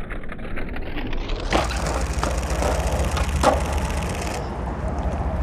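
Skateboard on concrete: a steady low rumble of wheels rolling, with two sharp knocks about a second and a half and three and a half seconds in.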